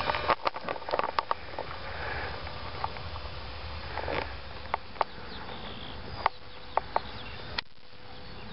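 Wind rumble on the microphone with a faint steady whine from a micro RC flex wing's twin tiny electric motors in the distance, and scattered sharp clicks. The sound drops out briefly near the end.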